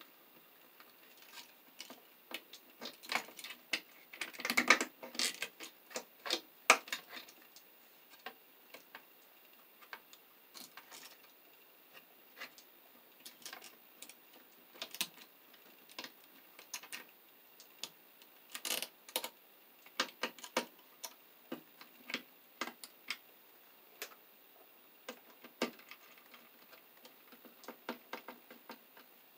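Irregular clicks, taps and light rattles of a light switch and its stiff wires being pushed and folded back into a switch box by hand, with the loudest clusters a few seconds in and again past the middle.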